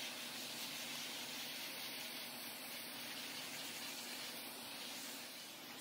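Vacuum cleaner with a corrugated hose running with a steady hiss of suction as its brush nozzle is drawn over the bare wood underside of a tabletop, picking up dust and cobwebs.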